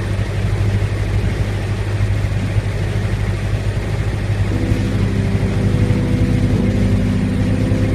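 Steady low drone of a ship's engine. About halfway in, sustained music chords come in over it and change about two seconds later.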